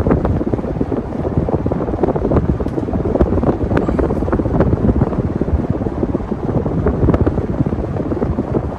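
52-inch Gulf Coast Raindance ceiling fan running, its downdraft buffeting the microphone: loud rumbling wind noise with scattered sharp pops.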